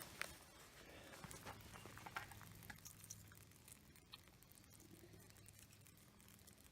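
Near silence, with a sharp click at the start and a few faint scattered ticks over a faint low hum.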